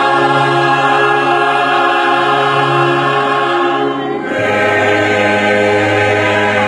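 Choir singing, holding one long chord for about four seconds, then moving to a new chord that is held to the end.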